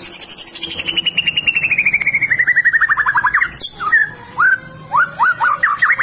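White-rumped shama of the Medan strain singing: a fast trill of rapid notes that slides steadily down in pitch for about three seconds, then a few separate upward-sweeping whistles.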